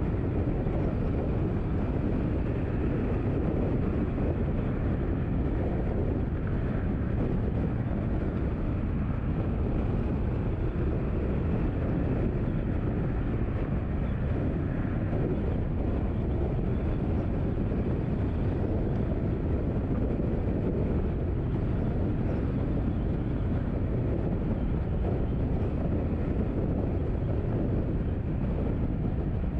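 Steady, low road and engine rumble of a car being driven, an even noise with no distinct events.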